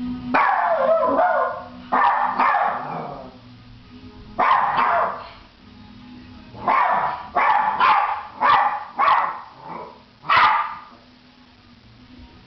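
Maltese barking: three longer, drawn-out barks in the first few seconds, then a quick run of six or seven short barks, then it stops. It is the distress barking of a small dog left alone, a sign of separation anxiety.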